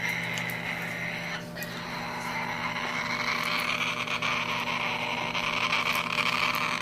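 Pet parrot calling continuously in a steady, raspy stream, with scattered short clicks, over a low steady hum.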